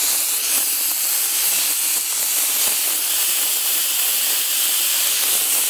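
Raw doenjang-marinated pork skewers sizzling steadily on a preheated, oiled ridged grill pan, just after being laid on.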